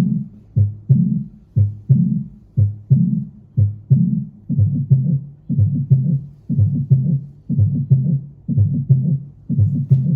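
Heart sounds heard through a stethoscope: a lub-dub pair of low thumps about once a second. From about halfway through, the beats grow busier, with extra sounds filling in between them.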